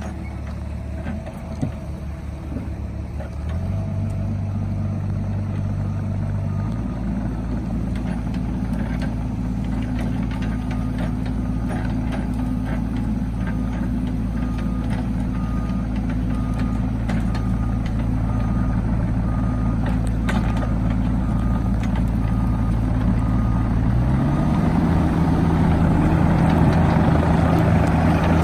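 Cat 305.5 mini excavator's diesel engine running under load, its revs stepping up twice in the first seven seconds and again near the end. Its travel alarm beeps about once a second through the middle while it tracks.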